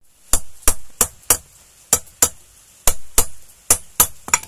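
Hammer driving a concrete nail into a flattened welding rod on a wooden board, punching a hole through the rod. About a dozen sharp metallic strikes, mostly in quick pairs.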